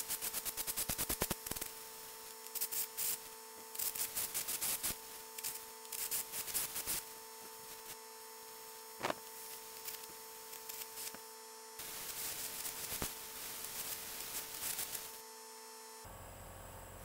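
Electric welding arc on steel crackling in stop-start bursts, over a steady electrical hum. The bursts come in clusters for the first few seconds, then turn sparser with single crackles.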